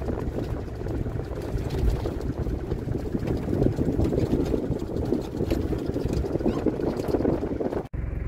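Wind buffeting the microphone over the rumble of an open-roof safari vehicle driving on a dirt track. Near the end it cuts off suddenly to a steadier engine hum.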